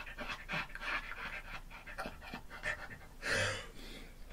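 A man's breathless laughter: short, faint, breathy gasps, with one louder gasp about three seconds in.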